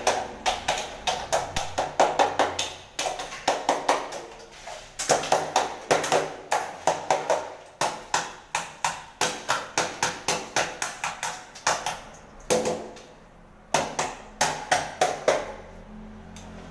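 Rapid hammer taps on a wooden door frame, about five a second, in runs broken by short pauses, as the frame is fixed in place.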